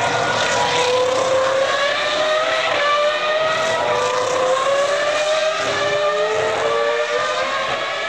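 Formula One car's 3.0-litre V10 engine accelerating at high revs, its high-pitched note climbing and dropping back at two upshifts.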